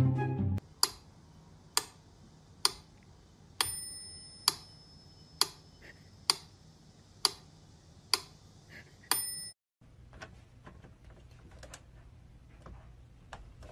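Mechanical metronome ticking steadily, a little over once a second, with a bell ringing on the accented beat twice, six beats apart. The ticking stops abruptly after about ten beats, leaving only faint light taps and rustles.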